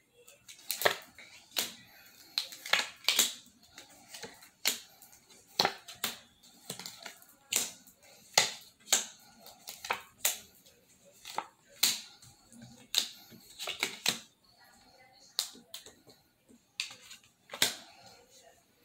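A homemade deck of paper cards being hand-shuffled, with cards laid on a wooden desk: a run of irregular sharp snaps and slaps, about one or two a second.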